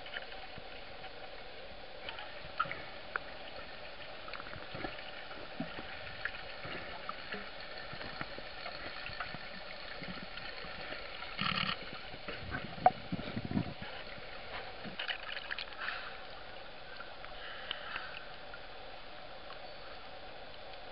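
Water sound heard through an underwater camera housing: a steady hum under scattered small clicks and knocks, with a short bubbling, gurgling stretch and one sharp knock about halfway through.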